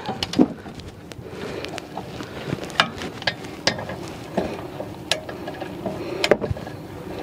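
Scattered light metallic clicks and knocks, irregularly spaced, from hand tools and metal brake parts being handled at a car's rear brake caliper bracket and rotor.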